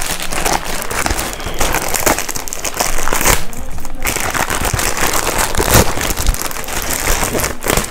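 Plastic DHL courier mailer bag crinkling and crackling as it is handled and pulled open by hand, with a brief lull a little past three seconds in.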